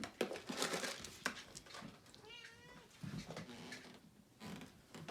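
A domestic cat meowing at feeding time: one clear meow about two seconds in. Several sharp knocks and clatters come in the first second or so.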